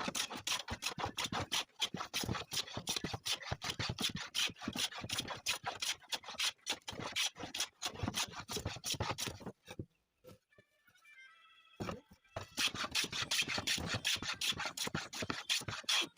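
Rapid back-and-forth scraping strokes of a hand tool on wood. They stop about ten seconds in and resume two to three seconds later.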